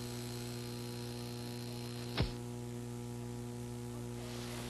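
Steady electrical mains hum with a ladder of overtones, the background of an old broadcast tape recording with no programme sound, broken by a single short click about two seconds in.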